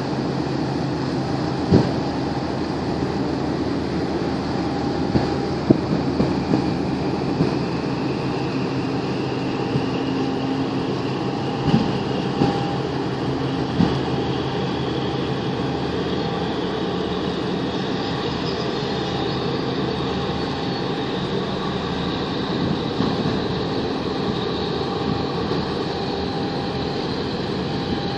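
Marine diesel engine running with a steady drone, with a few short knocks over it.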